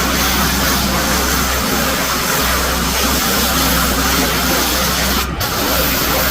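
Pressure washer at work: the spray jet hissing against the driveway over the steady hum of the machine's engine. The spray briefly drops out about five seconds in.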